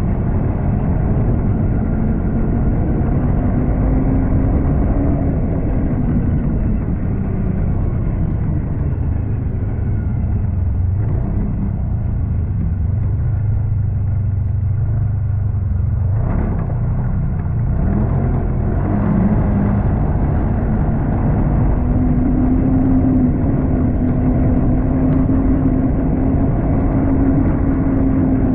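Snowmobile engine running while riding, with a heavy low rumble. The engine pitch eases off through the middle and then climbs and holds higher toward the end, with a brief sharp knock about halfway.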